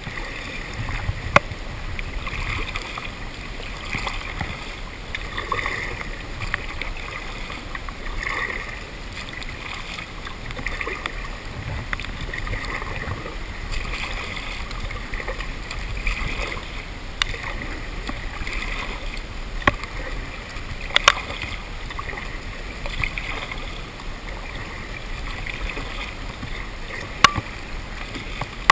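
Double-bladed paddle strokes swishing through the water at a steady rhythm, about one every second and a half, muffled by a waterproof camera case. Occasional sharp ticks of hailstones hitting the case.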